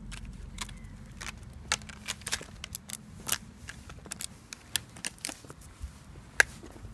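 Irregular sharp clicks and taps, a dozen or more at uneven intervals, from a small dog on a leash moving about on brick paving; the loudest comes near the end.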